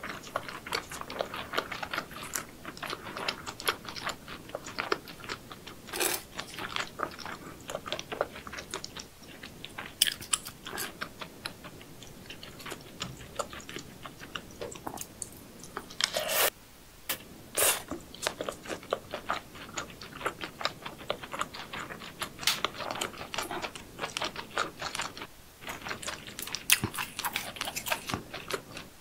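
Close-miked chewing and biting of crunchy seafood: a dense run of wet crackles and crunches, with a few louder cracks.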